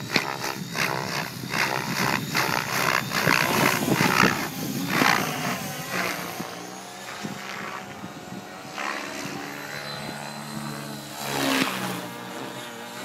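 Electric Align T-Rex 700 flybarless RC helicopter in aerobatic flight. Its rotor blades whoosh in loud pulses about three a second for the first few seconds, then settle into a steadier rotor drone with a thin motor whine. There is a brief loud swell near the end.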